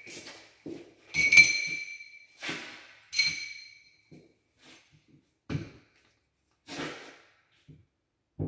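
Ceramic tiles clinking against each other and knocking as they are handled, with the loudest ringing clinks about a second and a half and three seconds in, then a few scattered soft knocks.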